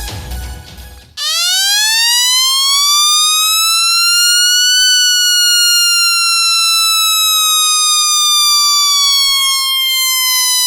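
Homemade two-transistor oscillator siren (TIP42 and BC548) sounding through a loudspeaker: a loud, buzzy tone starts about a second in, rises in pitch for about four seconds, then slowly falls. The first second holds the tail of electronic music.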